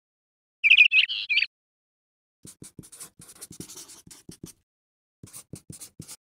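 A brief burst of warbling, bird-like chirps about a second in, the loudest sound. It is followed by a marker pen scratching across a writing surface in quick short strokes as letters are written, with a pause between two runs of strokes.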